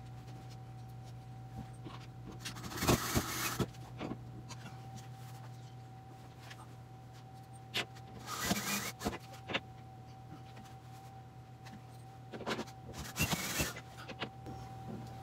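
Cordless drill driving screws into wall anchors in three short runs of about a second each, a few seconds apart.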